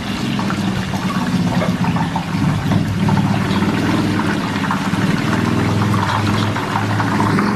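Chopped garlic, washed in salt water, deep-frying in hot oil in a wok: a loud, steady bubbling sizzle full of fine crackles.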